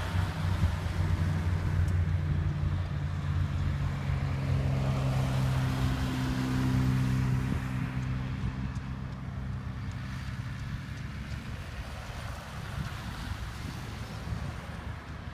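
Engines of military armoured four-wheel-drive vehicles driving past: a steady engine drone that fades after about eight seconds, with wind on the microphone.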